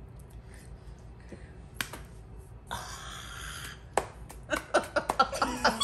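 A baby-powdered hand slapping a face once, about two seconds in, followed by a breathy burst of about a second and then bursts of laughter near the end.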